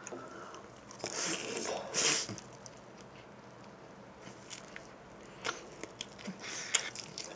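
Close-miked eating sounds: a bite into a cheese-pizza crust, with soft wet noisy bursts about one to two seconds in, then chewing with scattered small mouth clicks.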